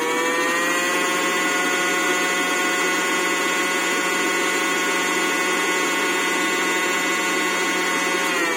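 Brushless motor of a Parkside PKSA 40-LI A1 40V cordless chainsaw running at full speed with no load on speed level 2, spinning the sprocket at nearly 11,000 rpm. It is a steady high whine that finishes rising in pitch about a second in, then winds down at the end.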